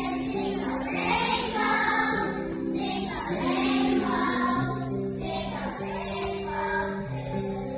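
A group of young children singing a song together in unison over a musical accompaniment of held notes.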